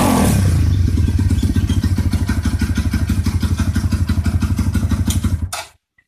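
Kawasaki D-Tracker 150's single-cylinder four-stroke engine dropping from a rev to a steady, pulsing idle just after the start. It stops abruptly about five and a half seconds in.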